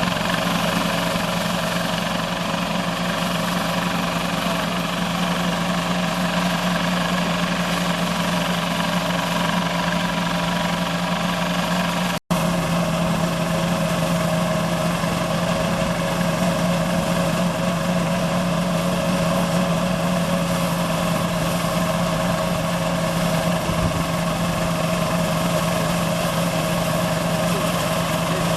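GANGYI GY4L-0.6 mini combine harvester running steadily under load at a constant engine speed, with a momentary dropout about twelve seconds in.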